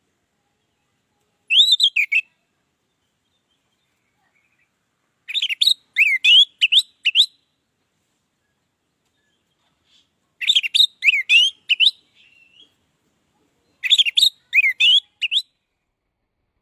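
Orange-headed thrush singing: four short phrases of quick, varied whistled notes, each a second or two long, with pauses of a few seconds between them.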